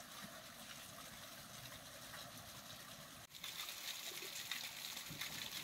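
Water trickling and running in a steady hiss. It turns louder and brighter at an abrupt break about three seconds in.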